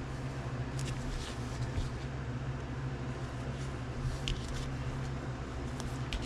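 A steady low hum, with a few light clicks and taps of rigid plastic card holders being handled and shuffled.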